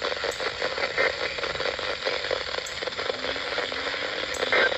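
Radio receiver static: a steady crackling hiss on the NOAA Weather Radio channel between alert messages, with a brief loud electronic burst near the end.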